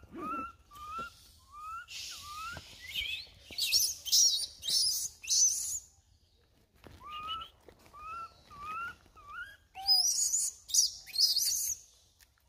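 Young macaque calling: short rising chirp-like calls about twice a second, in two bouts, each followed by a run of louder, shrill, wavering screeches.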